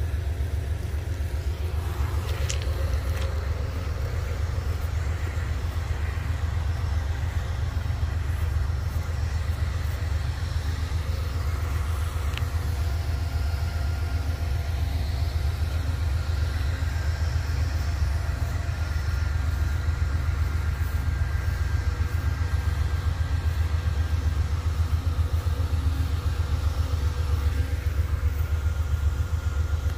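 Freight train rolling past: a steady low rumble of cars on the rails.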